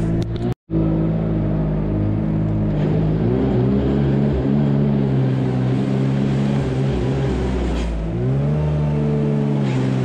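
Tractor engine running steadily, its pitch rising twice as it revs up: once about three seconds in and again near the end. The sound cuts out for an instant just after the start.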